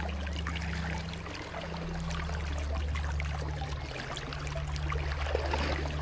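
Shallow stream water flowing and splashing over rocks, a steady rush dotted with small trickling splashes, over a steady low rumble.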